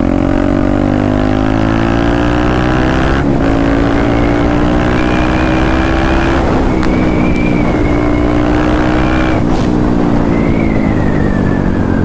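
KTM Duke 390 single-cylinder engine through an aftermarket exhaust under hard acceleration. The revs climb and snap down on quick upshifts about three and six seconds in, then the revs fall away as the throttle eases near the end.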